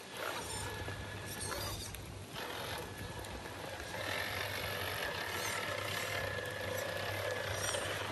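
Electric motor and gear drive of an MST radio-controlled scale crawler whining steadily as it crawls over wet rock, with a pause about two seconds in, over a constant hiss of background noise.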